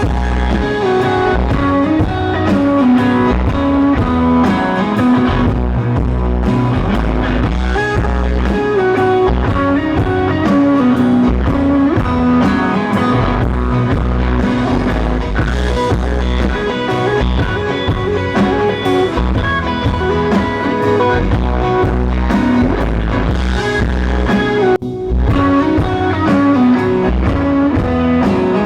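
Live rock band playing an instrumental passage: electric guitar playing melodic lead lines over bass and drums. There is a brief break about three seconds before the end.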